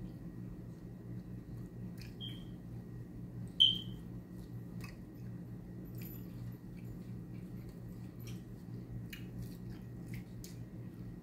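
Close-up eating sounds from someone eating saucy chicken wings by hand: small lip smacks, chewing and finger-licking clicks over a steady low hum. Two brief high squeaks come about two and three and a half seconds in, the second the loudest sound.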